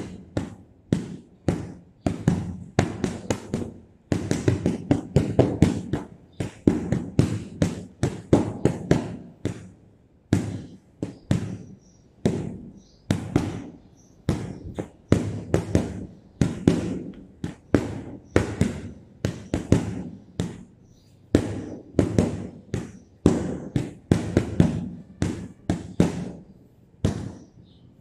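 Boxing gloves striking a hanging heavy bag, sharp thuds in quick combinations of several punches with short pauses between them.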